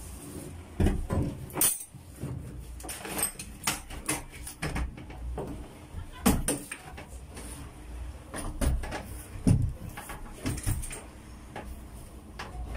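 Irregular metallic clanks and knocks of hand tools against the boat's transmission as it is being unbolted for removal.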